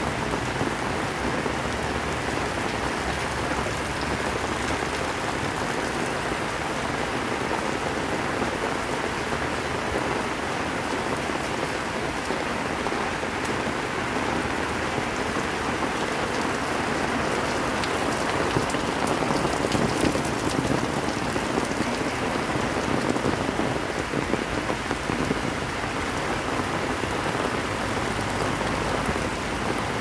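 Heavy rain falling steadily on the street, a dense even hiss that swells a little about two-thirds of the way through.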